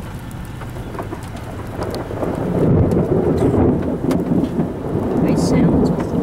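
Thunderstorm noise: a low, irregular rumble that swells about two seconds in and holds.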